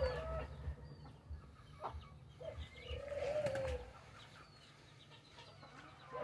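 A dove cooing: one drawn-out note that rises and falls, about two and a half seconds in, with a few faint high peeps around it.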